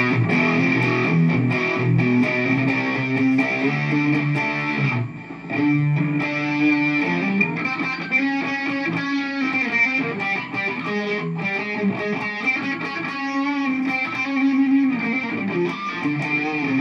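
Electric guitar played through a Zoom G5n multi-effects processor on its Diezel-modelled high-gain amp patch: a distorted riff of held chords and single notes, with a short break about five seconds in.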